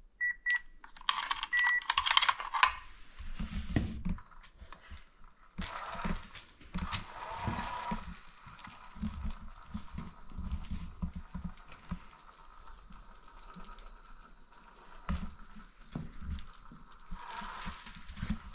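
Two short electronic beeps from the RC truck's speed controller as the battery is plugged in, with clicks of the connector. Then the Tamiya Grand Hauler's electric motor and three-speed gearbox run in a slow setting as the truck drives across a concrete floor: a thin steady high whine with irregular low rattles.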